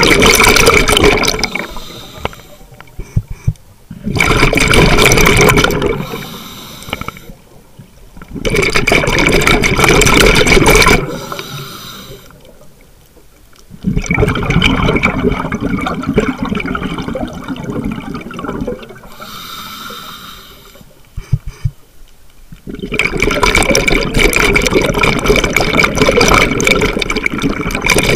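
Scuba diver breathing through a regulator underwater, heard from a camera in the diver's own mask: bursts of exhaled bubbles two to three seconds long alternate with quieter stretches.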